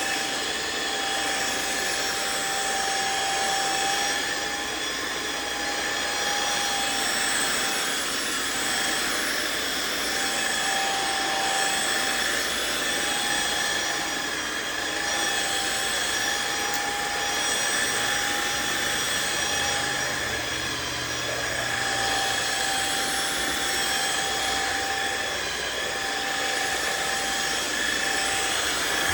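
Riccar R70 wet-dry floor washer running steadily in auto mode: its suction motor gives a steady high whine over a rushing hiss, with the dual brush rolls turning.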